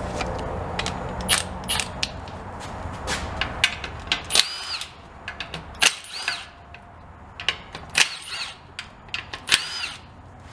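A ratchet loosening the bolts of an automatic transmission pan, in repeated short bursts about half a second to a second and a half apart, over a low hum that drops away about four seconds in.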